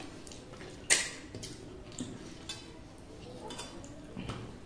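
Hands mixing rice on stainless-steel plates while eating: soft scrapes and small taps of fingers against the metal, with one sharp clink about a second in and a dull knock near the end.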